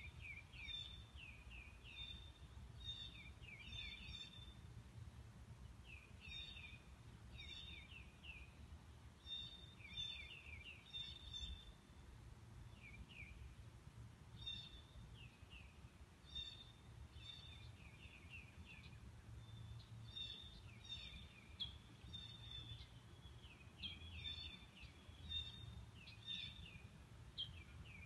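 Small songbirds chirping in repeated clusters of quick, high, downward-sliding chirps, a new burst every second or two. A faint, steady low rumble runs underneath.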